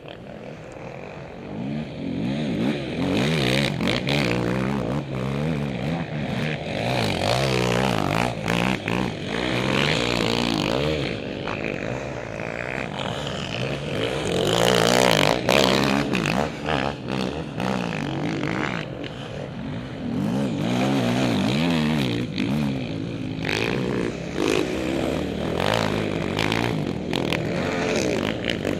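Racing quad's engine, heard from a camera mounted on the machine, revving up and down again and again, with frequent knocks and rattles. It is quieter for the first two seconds, then rises sharply.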